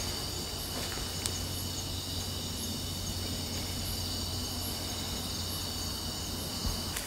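Night insects, crickets, chirring in a steady high-pitched drone, with a steady low hum underneath.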